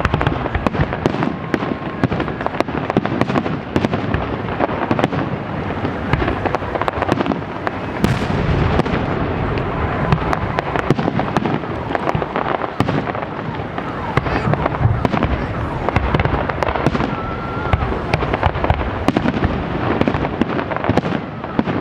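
Fireworks salute: a dense, continuous barrage of bangs and crackles from bursting shells, with no pause.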